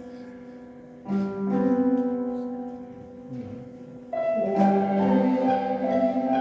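A live ensemble playing held chords, with a new entry about a second in and a fuller, louder entry about four seconds in.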